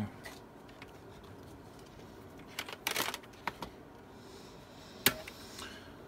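Scattered clicks and taps from hands handling small hardware: a short cluster about three seconds in and a single sharp click about five seconds in.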